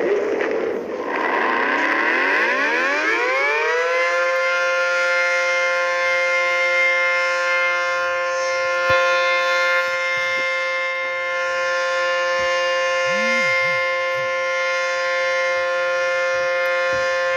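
Outdoor tornado warning siren winding up, rising in pitch over about four seconds, then holding a loud, steady tone.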